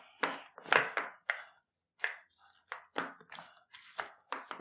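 Hands kneading wet, sticky maida dough in a steel bowl: irregular squelches and slaps, roughly two a second.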